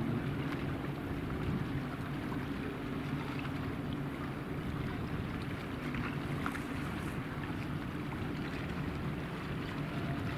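Several Air Tractor AT-802 Fire Boss single-engine turboprop air tankers flying low over the water: a steady distant drone with a low hum.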